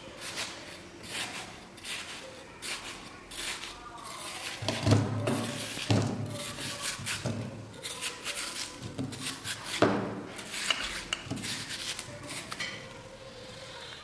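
Scored watermelon flesh being cut and scraped off the rind in a series of short, wet scraping strokes. From about four seconds in, duller knocks join them as the cubes drop into the bowl, the loudest about five and ten seconds in.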